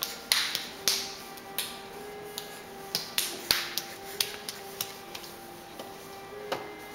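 Sharp, irregular taps and slaps, two or three a second, from a crawling baby's palms on a ceramic tile floor, over a faint simple tune of held notes.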